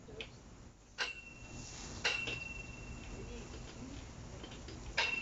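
Metal barbecue tongs clinking against a charcoal grill's grate as meat is turned: a few sharp metallic clicks, about a second in, two seconds in and near the end, the louder ones leaving a high ringing tone.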